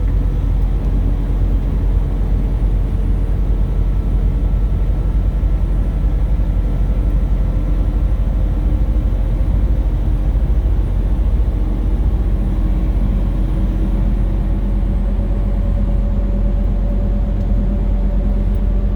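Steady low rumble of road and engine noise inside a moving car's cabin, with a faint engine hum that shifts slightly in pitch.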